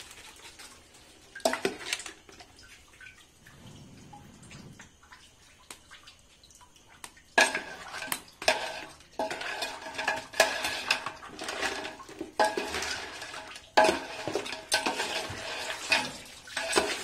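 Steel spoon stirring thick crab masala in a large aluminium pot, scraping and clinking against the pot's sides and bottom. A couple of clinks come about a second and a half in, then steady, busy stirring from about seven seconds in.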